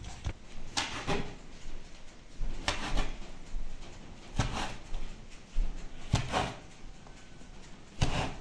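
Knife slicing a rolled log of dough and knocking on a wooden board, a sharp knock every second or two, often two close together.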